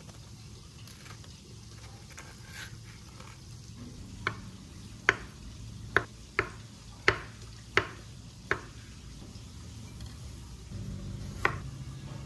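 A knife cutting soft avocado and striking a wooden cutting board: seven sharp knocks about two-thirds of a second apart, after a few seconds of faint spoon scraping as the flesh is scooped from the skin, and one more knock near the end.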